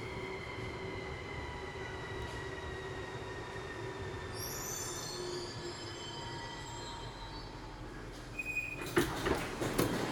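Metro train braking into a station: the electric motors whine with a slowly falling pitch, a high brake squeal comes about halfway through, and near the end a series of clunks and knocks sounds as the train comes to a stop.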